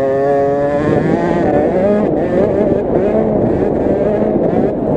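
KTM SX50 two-stroke minibike engine at high revs, holding a steady note for about the first second, then wavering up and down in pitch as the throttle is worked.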